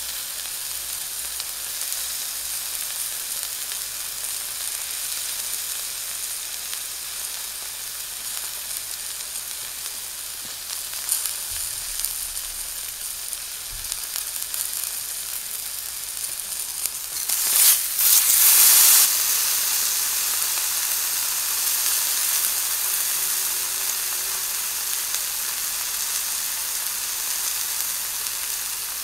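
Elk steak sizzling steadily as it sears in a hot cast-iron skillet. Near two-thirds of the way through, the sizzle flares up loudly for about a second and a half, then settles back slightly louder than before.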